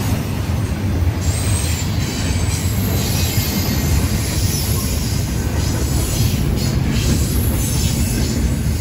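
Double-stack container well cars of a freight train rolling past close by: a loud, steady rumble of steel wheels on the rails.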